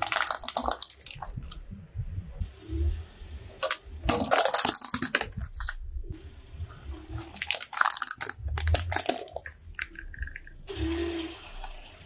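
Plastic toys cracking and crunching under a rolling car tyre, in several bursts of sharp snapping with a low rumble from the tyre on asphalt.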